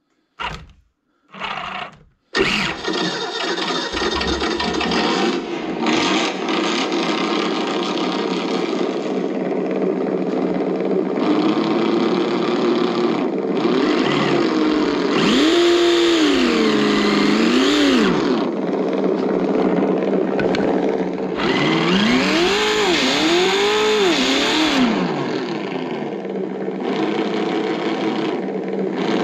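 Reely V8 sound module's loudspeaker playing a simulated V8 engine. After two short sounds it starts up about two seconds in and runs quite loud, revving up and down near the middle and twice more toward the end.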